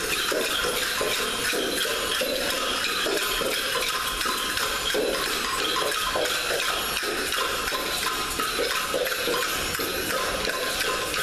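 Crowd noise from a large group of people moving about a hall with a wooden floor, a steady jumble of indistinct sound broken by many small clicks and clinks.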